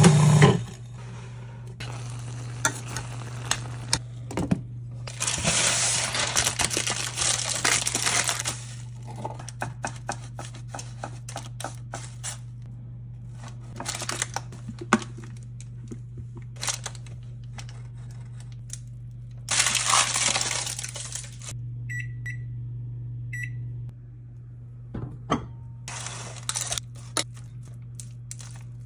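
Kitchen food-prep handling: parchment paper crinkling in several stretches, with light clinks and taps of a spoon and a plastic food container. A steady low hum runs underneath, and two short high beeps sound a little past the middle.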